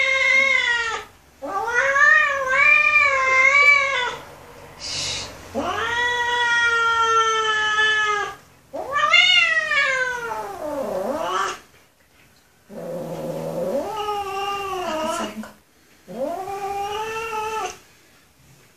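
A kitten meowing loudly in a series of about six long, drawn-out meows with a wavering pitch, each lasting two to three seconds, with short pauses between them.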